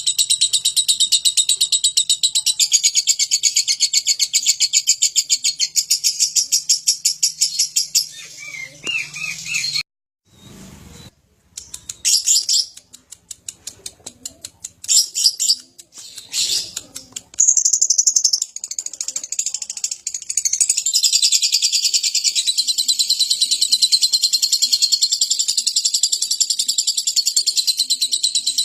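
Lovebird singing its long, rapid chattering trill (the 'ngekek'), high-pitched and fast-pulsed. About eight seconds in it breaks into short separate bursts with a brief silent gap, then at around eighteen seconds it takes up the long trill again.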